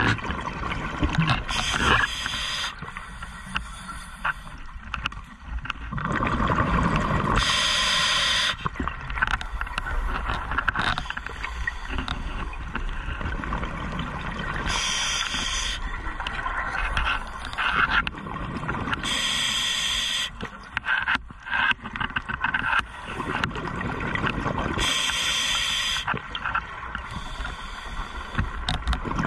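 Scuba diver breathing underwater through a regulator: a hiss about a second long repeats roughly every five seconds, with bubbling gurgles between.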